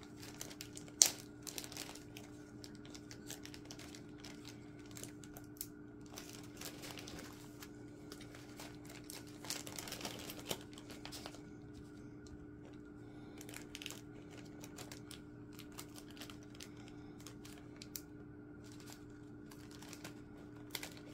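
Small plastic zip bags of diamond-painting drills being handled and sorted: plastic crinkling with scattered small clicks and taps, one sharper click about a second in, over a steady low hum.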